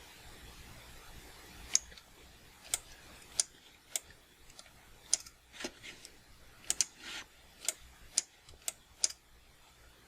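A dozen or more sharp, irregularly spaced clicks on a computer, starting about two seconds in, from a mouse and keys being worked.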